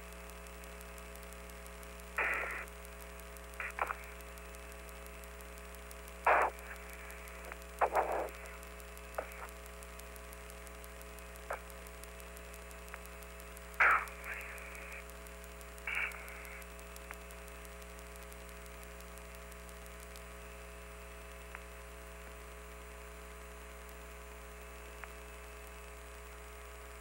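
Steady hum on the Apollo 15 lunar-surface radio channel, broken by about six short bursts of static in the first sixteen seconds, then the hum alone.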